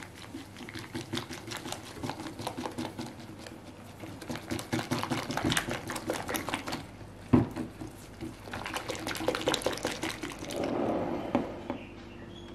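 Wire whisk beating whipped-cream powder and milk in a glass bowl, its wires clicking quickly against the glass. One sharp knock comes about seven seconds in.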